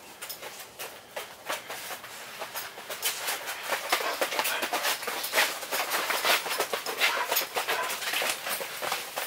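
Dogs moving about on a tarp-covered floor: irregular rustling and scratching, made up of many short ticks and scuffs.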